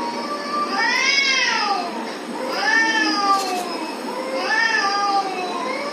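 Cat meowing: three long meows that rise and fall in pitch, evenly spaced about two seconds apart, with a fourth beginning at the end.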